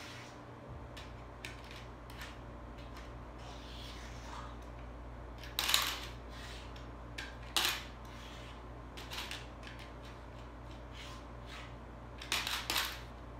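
Pennies dropped one at a time into a small coin bank, each landing with a short clink. About five distinct clinks come at uneven intervals, the last two close together near the end, with fainter taps of coins being handled between them.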